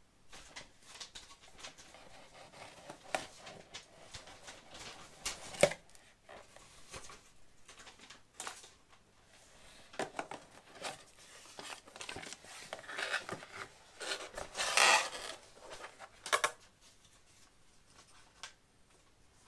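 Cardboard box being cut open along its taped seam, then its lid and flaps pulled apart with scraping, tearing cardboard sounds and scattered knocks. The sharpest knock comes about five and a half seconds in, and the loudest rasping scrape comes around fifteen seconds in.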